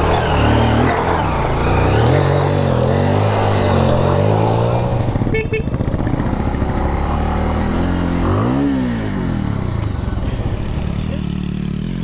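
Motorcycle engine revving up and down under load, its pitch rising and falling with the throttle, with one sharp rev up and back down about eight and a half seconds in.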